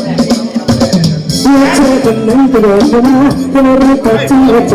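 Background music: a Thai pop song with a singer's voice over instrumental backing.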